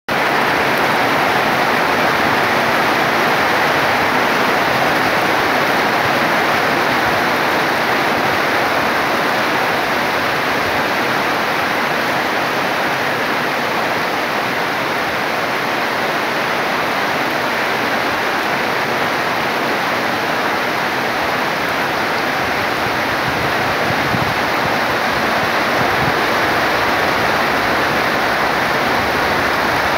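Heavy rain falling steadily on tea bushes and trees, a loud, even hiss without a break.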